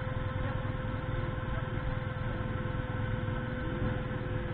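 Motorcycle engines idling steadily, with a thin steady whine held over the low rumble.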